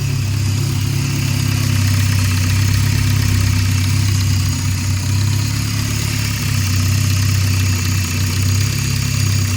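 2008 Scion xB's 2.4-litre four-cylinder engine idling steadily with a multiple-cylinder misfire, which the owner traced to the brake booster.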